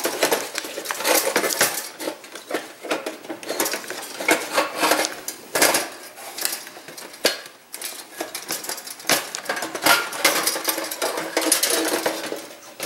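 Thin stainless steel toaster shell rattling, clanking and scraping against its plastic base and controls as it is wiggled loose and lifted off, in many irregular sharp clatters.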